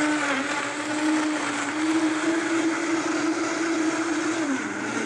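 Vitamix blender running on high, blending whole fruit, spinach and water into a smoothie. A steady motor whine rises slightly in pitch, then drops near the end as the motor winds down.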